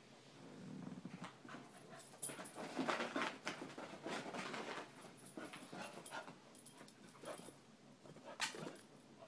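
A puppy and a chihuahua playing rough: a low growl about half a second in, then panting and scuffling in irregular bursts, and a single sharp click near the end.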